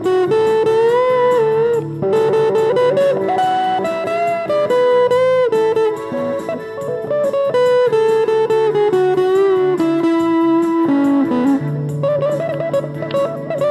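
Instrumental guitar break: a lead guitar line with bent notes and vibrato over a steady lower backing.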